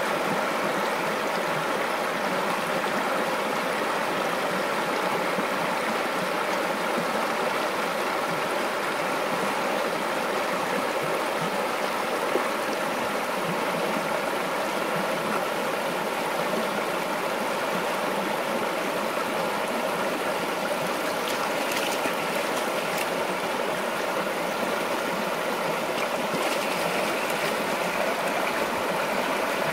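Arroyo stream running: a steady, unbroken rush of flowing water.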